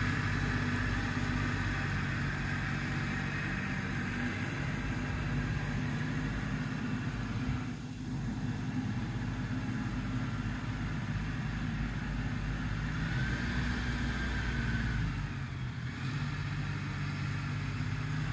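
Compact tractor engine running steadily as the tractor drives away, the engine note dropping briefly about eight seconds in and again near the end.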